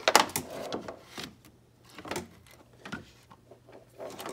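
A handheld Klein Tools digital multimeter being handled and set down on the engine: a clatter of clicks and knocks just after the start, then scattered single taps.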